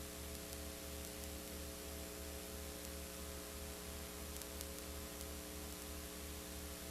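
Steady electrical mains hum with hiss and a low buzz that pulses about three times a second, from the recording itself; no soldering sound stands out.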